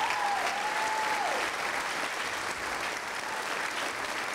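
Theatre audience applauding after a band member's introduction, steady clapping throughout. Over it, a single held cheer from the crowd drops in pitch and fades about a second and a half in.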